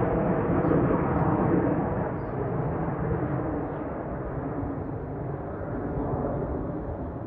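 F-16 fighter jet's engine noise from high overhead, a rough, rumbling rush that slowly fades.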